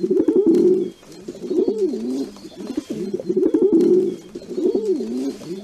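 Feral pigeons cooing: a run of low, rolling coos that swoop up and down in pitch, one after another with short breaks.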